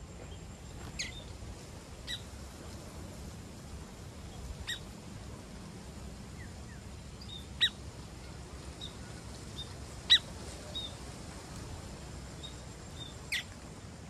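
Sparrows chirping: about six short, sharp chirps a couple of seconds apart, each falling quickly in pitch, with softer short chirps in between. A faint, steady low rumble runs underneath.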